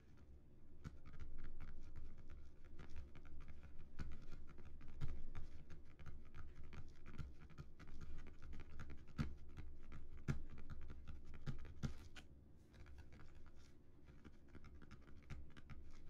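Fingertips and nails tapping and scratching on the surface of a small Earth-printed dome, with many quick light taps over a soft scratching, lighter toward the end.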